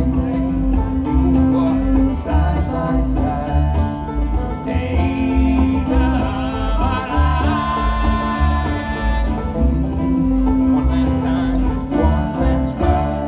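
Live bluegrass band playing: banjo picking over a steady upright bass pulse, with acoustic guitar.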